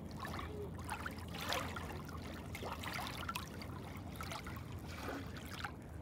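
Small ripples lapping over mossy rocks at the water's edge, with irregular little splashes and trickles.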